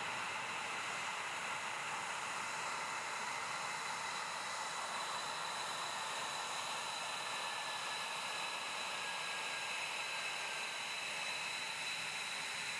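F-22A Raptor's twin Pratt & Whitney F119 turbofan engines running at low taxi power: a steady rushing hiss with high, thin whining tones over it.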